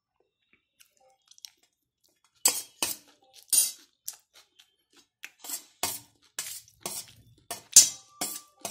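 Steel spoon scraping and clinking against a stainless steel plate while scooping up rice, in a string of about a dozen short strokes that begin about two and a half seconds in.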